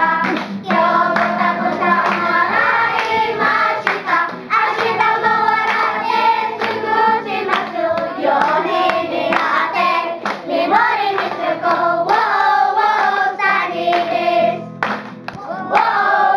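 A group of children singing a song together in chorus, with hand claps here and there.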